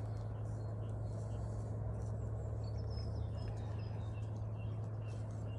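Small birds chirping in the background, with many short high calls scattered throughout, over a steady low hum.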